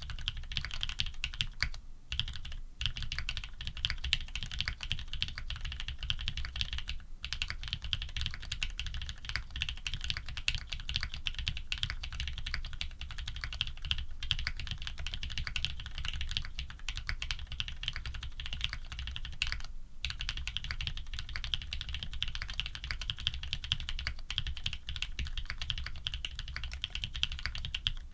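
Continuous fast typing on a Think 6.5 v2 custom mechanical keyboard with Cherry black-housing switches fitted with cream stems, lubed with Krytox 105, on an FR4 plate under PBT keycaps. The keystrokes come as a dense stream of clicks, with a few brief pauses.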